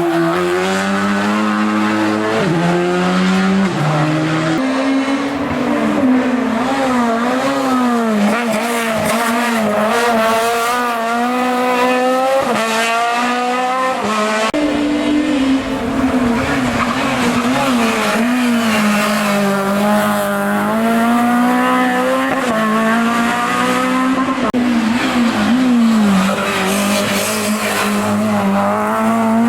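Racing car engine at full effort on a hillclimb. The revs climb, drop sharply at each gear change, and rise and fall repeatedly through the corners.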